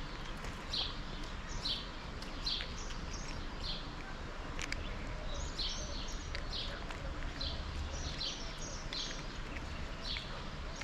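Small birds chirping: short, high chirps repeating about once a second over steady outdoor background noise, with a few faint clicks.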